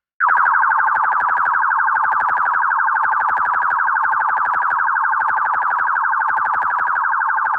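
Synthesized futuristic electronic sound effect: a steady, rapidly pulsing alarm-like tone that starts abruptly and holds unchanged at the same pitch.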